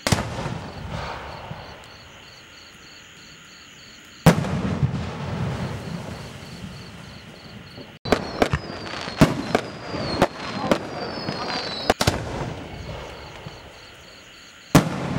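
3-inch aerial firework shells going off: a sharp bang at the start and another about four seconds in, a quick run of several bangs from about eight to twelve seconds, and a last bang near the end, each followed by a rumbling echo that fades.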